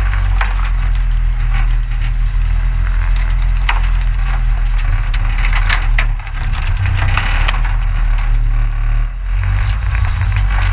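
A boat's motor running steadily as the boat forces its way through dense reeds and willow brush, with stems and branches cracking, snapping and scraping along the hull.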